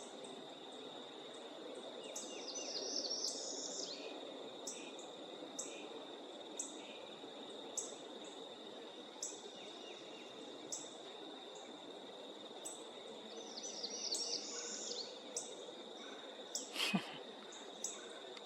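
Wetland ambience: a steady high insect drone under a short high bird note repeated about once a second, with two brief bursts of bird song. A single sharp knock sounds near the end.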